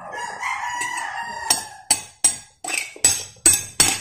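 A rooster crows for about a second and a half. Then a metal spoon clinks sharply against a plate about six times.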